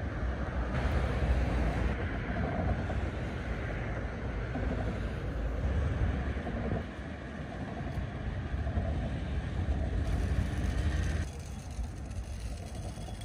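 Road traffic on a wide city street: cars driving past, engines and tyre noise over a steady low rumble. It drops quieter near the end.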